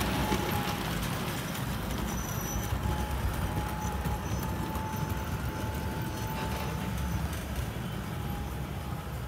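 Model train, a small shunting locomotive hauling passenger coaches, rolling along the track: a steady low rumble of wheels and motor, with a faint thin whine that comes and goes.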